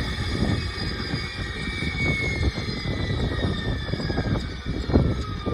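Large electric RC scale helicopter running, a high whine that slowly falls in pitch over an uneven low rumble.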